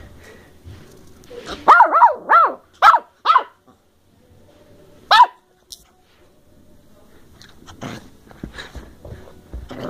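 Ten-week-old Bedlington terrier puppy barking in play: a quick run of five high-pitched yaps about two seconds in, then a single yap about five seconds in.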